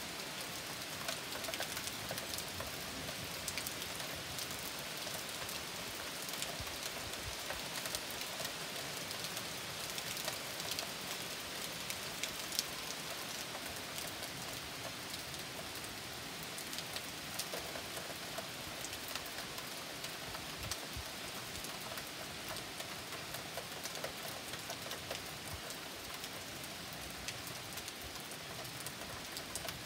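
Rainstorm: steady rain falling on leaves and surfaces, an even hiss with many scattered individual drop ticks.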